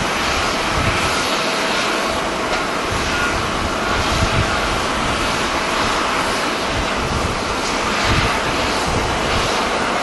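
Strong wind buffeting the microphone in uneven low gusts, over a steady rush of distant jet aircraft noise.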